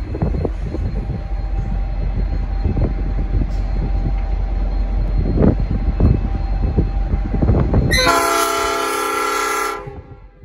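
Departing diesel locomotive and train giving a loud low rumble with many short knocks. About eight seconds in, the locomotive's Nathan P5 five-chime air horn sounds one chord blast of just under two seconds, which cuts off sharply.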